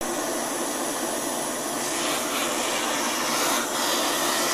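Handheld gas torch burning with a steady hiss as its flame heats an aluminium moped-engine crankcase half, so the crankshaft and its bearing can be seated hot.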